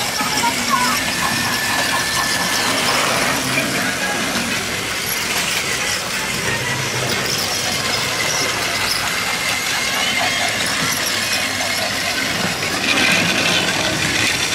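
Battery-powered Plarail toy trains running on plastic track: a steady motor and gear whir with the wheels rattling along the track.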